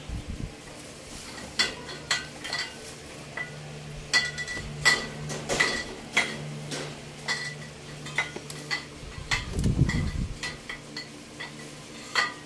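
Small household items being picked up and set down on a metal wire shelf, clinking and knocking at irregular intervals, some strikes ringing briefly, with a heavier low thump about ten seconds in.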